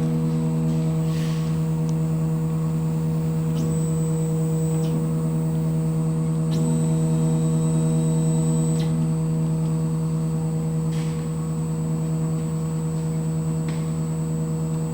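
CNC milling machine powered up, with a steady hum. A faint high whine comes in twice, about four and seven seconds in.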